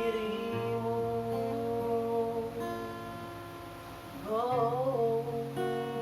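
Acoustic guitar strumming chords under a singer who holds the word 'dirimu' at the start. Near the end the singer sings a wavering 'oh'.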